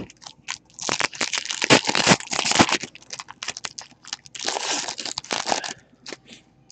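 Foil wrapper of a Donruss basketball trading-card pack crinkling and tearing as it is ripped open, in two stretches of crackly rustling.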